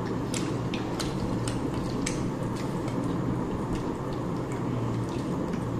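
Eating sounds: soft, irregular wet clicks and smacks of chewing food, over a steady low background hum.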